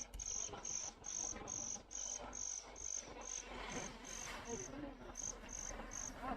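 Cricket chirping steadily, short high-pitched pulses about two or three a second, with faint voices murmuring in the background.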